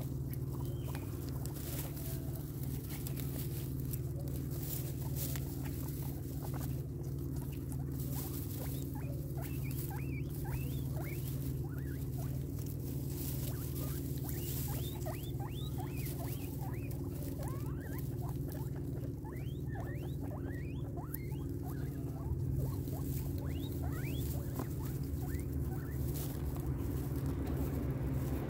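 Guinea pigs chewing and crunching fruit and vegetables, with many short high squeaks from about eight seconds in. A steady low hum runs underneath.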